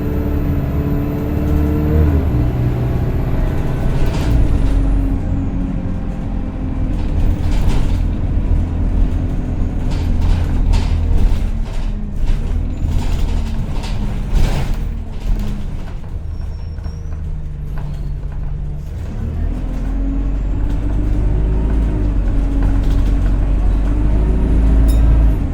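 Single-deck bus heard from inside while riding: the engine drones under a loud whining 'hoover' tone that climbs as the bus pulls away at the start, drops back about two seconds in, eases off past the middle and climbs again near the end. Scattered knocks and rattles from the bus body.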